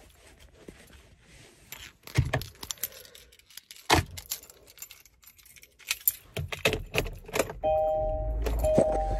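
Car keys jangling and clicking as they are handled in the driver's seat. About seven seconds in, a steady low engine rumble comes in, and a two-note electronic car warning chime sounds repeatedly near the end.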